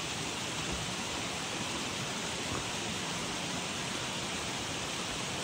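A mountain stream rushing: a steady hiss of flowing water.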